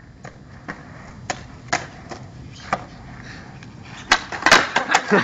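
Skateboard wheels rolling over a concrete sidewalk, clicking across the slab joints. About four seconds in the tail snaps down for a flip trick, followed by a loud clatter of the board hitting the pavement.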